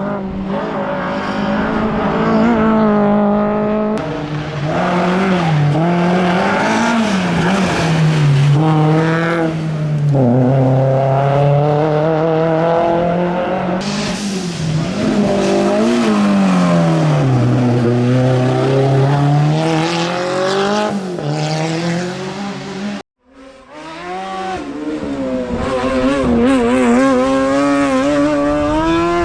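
Hillclimb race car engine running hard, its pitch climbing and dropping again and again as the car accelerates, shifts and brakes through the corners. The sound breaks off for a moment about two-thirds of the way through, then an engine is heard revving up again.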